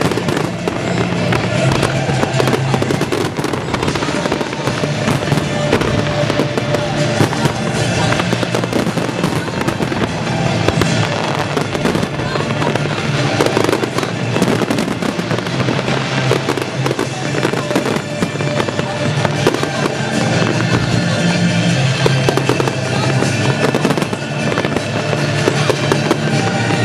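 Fireworks display shells bursting in quick succession, many overlapping bangs and crackles, over music.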